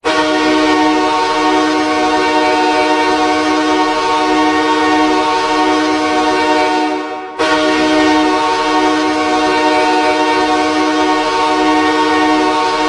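Hockey arena goal horn, a deep air horn held in one long steady blast. It fades briefly about seven seconds in, then starts again abruptly at full strength.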